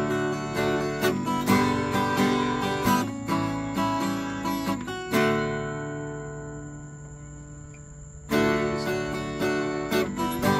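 Acoustic guitar strummed in chords, with no singing. About halfway through, one chord is left to ring and fade for about three seconds before the strumming picks up again.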